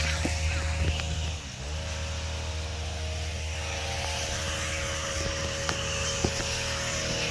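Small gasoline engine of yard equipment running steadily. It dips briefly in speed about a second and a half in, then recovers.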